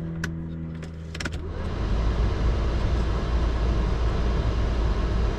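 BMW E34 blower motor, just fitted with a new resistor, spinning on fan speed one with a steady hum and a couple of clicks; about one and a half seconds in a loud, steady rush of air from the fan takes over.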